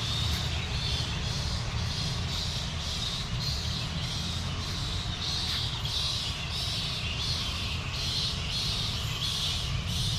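A flock of birds calling in a dense, continuous chorus of harsh, repeated calls, about two to three a second, over a steady low rumble.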